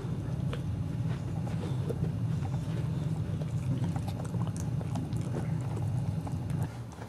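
Boxer dog gnawing on a chew stick: irregular wet crunching and clicking of teeth on the chew. A steady low hum lies beneath it and stops shortly before the end.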